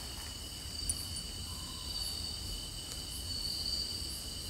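Crickets trilling steadily with a continuous high-pitched sound, and a single small click about a second in.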